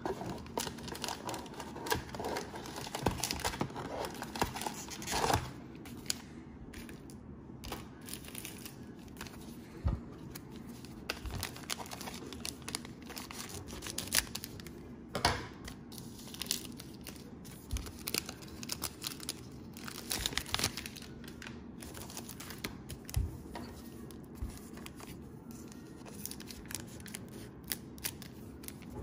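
Cellophane wrapper of a Panini Prizm basketball-card cello pack being torn open and crinkled, with cards handled in between: an irregular run of crackles and soft clicks, busiest in the first few seconds, around the middle and about two-thirds through.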